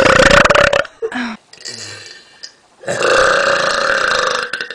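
A woman's long, loud, drawn-out burps: one tailing off just under a second in, then after a pause another lasting almost two seconds, each held on a fairly steady pitch.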